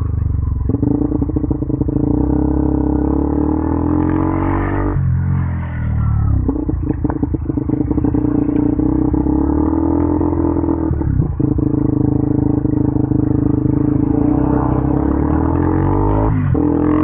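KTM Duke 200's single-cylinder four-stroke engine through an Akrapovic exhaust, ridden in traffic. The engine note rises several times under acceleration, with short dips at the gear changes about five seconds in, around eleven seconds and near the end.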